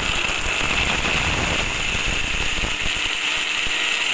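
Preethi mixer grinder running at speed, its blades chopping coconut pieces, garlic and green chillies dry in the jar, with a steady high whine. This is the first short grind before water is added for the chutney.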